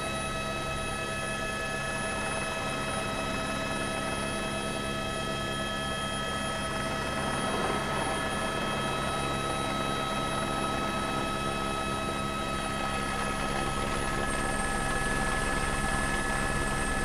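Helicopter running steadily: a constant turbine whine made of several fixed tones over a low, fast rotor beat.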